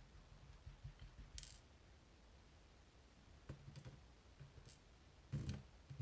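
A few faint, irregular metallic clicks and ticks as tiny Kaba lock key pins are handled with tweezers and set into a pin tray. A duller tap near the end is the loudest.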